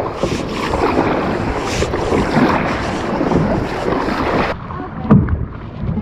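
Rustling and scraping of a handheld action camera rubbing against clothing and gear, with wind on the microphone. The hiss cuts off sharply about four and a half seconds in, leaving a duller rumble with a few knocks.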